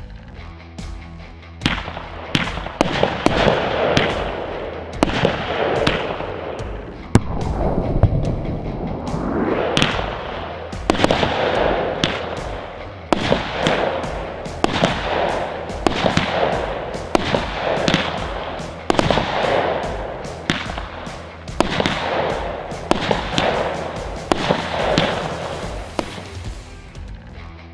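WECO Raptor 22-shot firework battery firing shot after shot, about one a second, each launch followed by its burst overhead.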